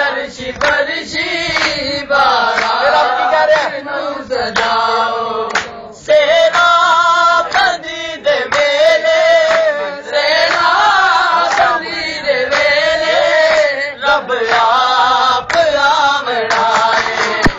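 A group of men singing a Punjabi qasida in chorus, loud and continuous, with sharp hand claps through it.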